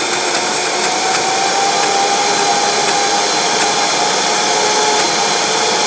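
Countertop blender running at full speed, really loud, churning pineapple chunks into a thick frozen whip. A faint whine from the motor climbs slightly in pitch about a second in.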